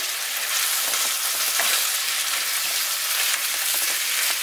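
Minced beef, sweetcorn, kidney beans and diced tomato sizzling steadily in a frying pan while a spoon stirs them, with faint scrapes of the spoon against the pan.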